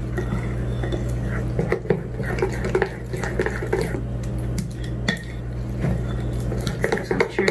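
A metal spoon stirring thick flour-and-water batter in a glass bowl, clinking and scraping against the glass in quick, irregular strokes as the lumps are worked out. A steady low hum runs underneath.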